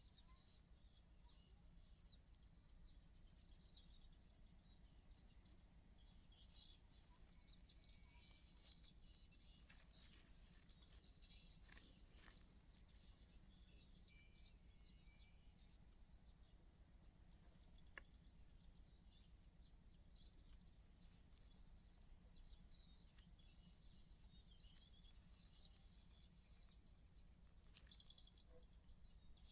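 Faint, high-pitched bird chirping that comes and goes, with a few short clicks, over a low steady hum.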